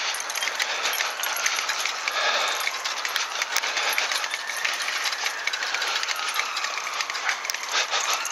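A bicycle rattling and clicking continuously as it rides along a bumpy lane, over a steady hiss of tyres on wet tarmac.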